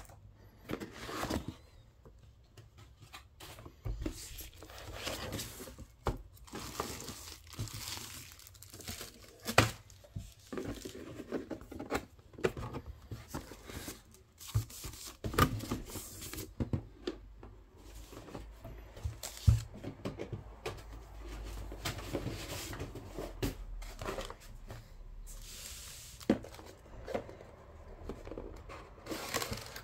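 Hands unpacking a cardboard box: a wrapping sheet crinkling and rustling, and cardboard flaps and inserts scraping and tapping, with a few sharper knocks.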